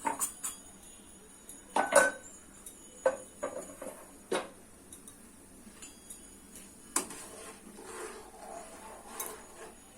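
Kitchen utensils clinking and knocking against a cooking pot: a handful of irregular sharp knocks, the loudest about two seconds in.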